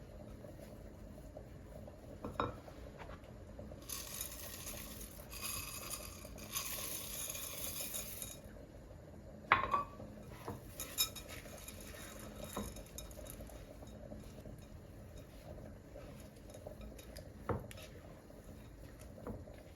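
Dishes and cutlery clinking during kitchen work: scattered sharp knocks of utensils against crockery, the loudest about halfway through, with a few seconds of steady hiss near the start.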